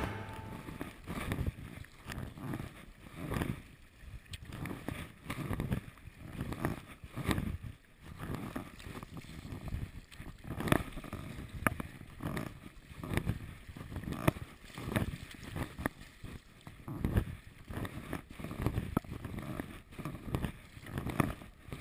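Sea kayak being paddled through choppy water: the paddle blades dip and water splashes and slaps against the hull in rhythmic surges about once a second.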